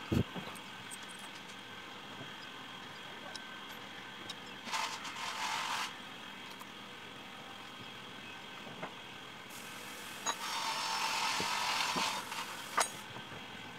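A knock as the electric drill is set down on the wooden bench, then handling sounds: two spells of scraping and rustling as the drilled wooden chair slats are fitted together on a bolt, and a sharp click near the end.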